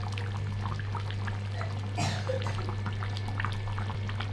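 Chicken curry gravy bubbling as it simmers in a kadai: many small pops over a steady low hum, with a brief louder splash of noise about two seconds in.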